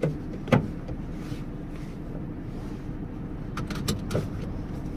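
Steady hum of a diesel van's engine running, heard from inside the cab. A seatbelt is drawn out and buckled, with a sharp click about half a second in and a few short clicks near the end.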